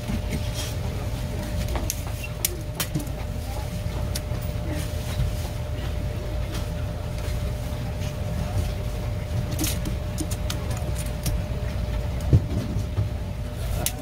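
Steady low hum carrying a faint steady tone, with scattered light clicks and taps as a tape measure is laid and handled against a fish on a plastic cutting board; one sharper knock comes about twelve seconds in.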